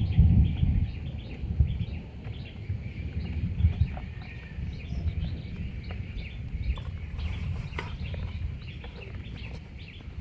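Outdoor animal calls: many short high chirps repeating throughout, over a low rumble that is loudest in the first second or so and then eases.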